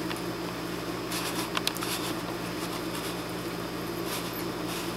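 Steady low hum and hiss of room tone, with a few faint clicks of small screws and parts being handled about a second in and again near the end.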